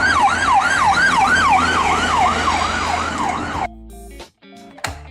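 Ambulance siren in a fast yelp, rising quickly and falling back about three times a second, that cuts off suddenly about three and a half seconds in. Plucked guitar-like music follows.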